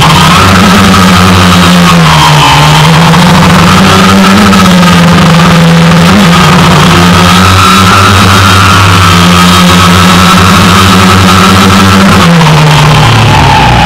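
DJI Phantom quadcopter's motors and propellers whining steadily, very loud and close as picked up by a camera mounted on the drone. The pitch dips briefly about two and a half seconds in and drops again near the end as the motors change speed for a steep bank.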